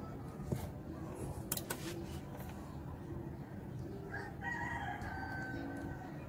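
A rooster crows once, a long call of nearly two seconds starting about four seconds in. Before it come a few sharp light clicks as multimeter probes are pressed onto a capacitor's terminals.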